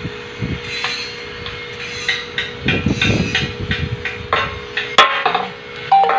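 Hammer blows and clanks on steel, with a quick run of knocks in the middle and one loud ringing clang about five seconds in, over a steady machine hum.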